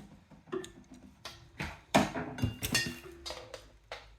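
Hard objects being handled: a series of irregular clicks and knocks with short clinking rings, the loudest knock about two seconds in.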